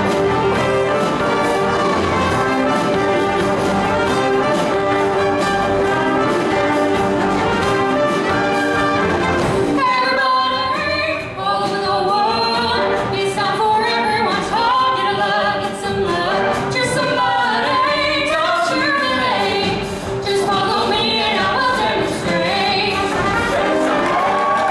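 Show choir performance: a full instrumental band with brass plays for about the first ten seconds, then the band thins out and the choir's massed voices come to the front, singing over lighter accompaniment.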